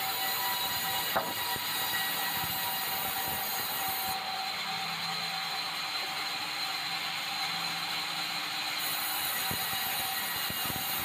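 Large band-saw headrig running and sawing red meranti timber: a steady high-pitched whine over a constant sawing noise, with one sharp click about a second in.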